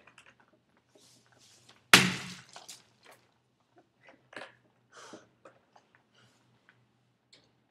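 A single loud, sharp thud about two seconds in, followed by scattered smaller knocks and rustles.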